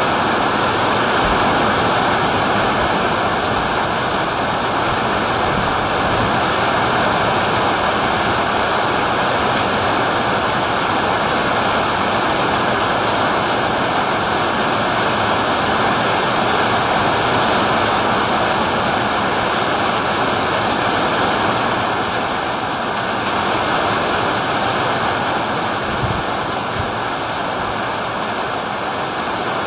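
Heavy rain pouring steadily in a thunderstorm, a dense, even hiss.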